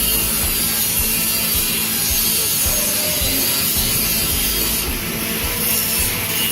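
Hacksaw being worked back and forth through a steel exhaust pipe, a steady scraping rasp.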